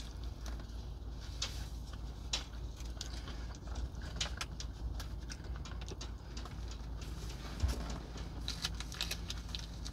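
Close-up eating sounds: a mouthful of food being chewed, with many small wet mouth clicks and an occasional fork tap on the plate, over a steady low hum.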